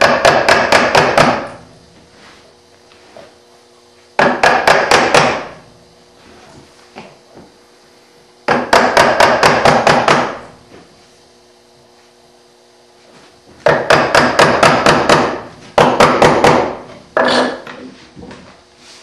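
A steel chisel being driven into hardwood by rapid hammer taps, chopping out the waste of a half-blind dovetail socket. The taps come in about six quick bursts of several strikes each, a few seconds apart.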